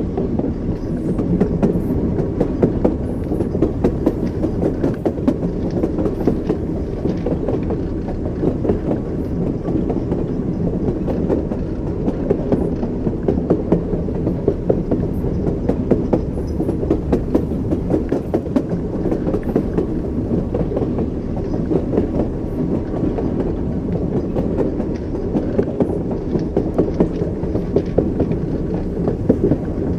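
Train wheels rolling on the rails at steady speed, a continuous low rumble with irregular clickety-clack knocks over the rail joints.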